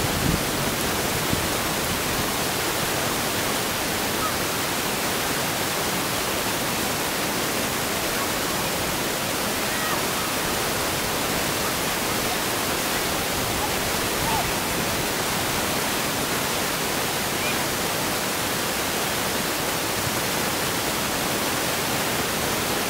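Steady, even hiss of outdoor background noise, with a few faint, brief distant shouts now and then.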